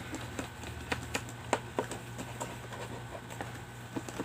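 Glue slime being mixed after activator has gone in: irregular small sticky clicks and pops, several a second, with a few louder ones.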